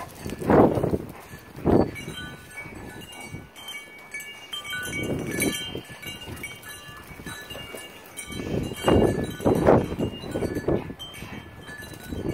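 Two chow chows play-growling as they wrestle, in rough bursts: a couple near the start, one midway, and a longer run of growls later on. Thin metallic chime tones ring faintly behind.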